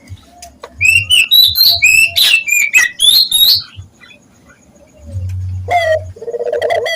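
A small bird twittering in fast, high rising-and-falling chirps for about three seconds. Then, near the end, a puter turtle dove begins cooing in low repeated notes.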